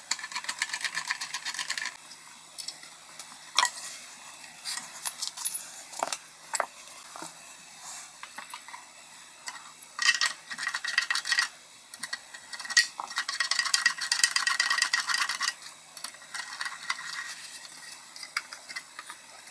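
Screwdriver driving screws into the wooden frame of an IKEA LÄTT children's chair: three stretches of rapid fine clicking, at the start, around ten seconds in and around thirteen to fifteen seconds in, with separate clicks and knocks of parts and tools being handled between them.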